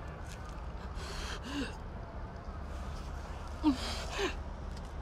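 A woman's shaky, gasping breaths, in two pairs, each breath with a short voiced catch like a stifled sob. The sharpest gasp comes a little past the middle.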